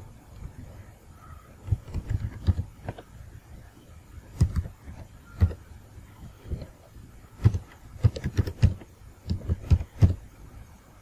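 Computer keyboard typing: irregular keystroke clicks, some single and some in quick runs of several keys.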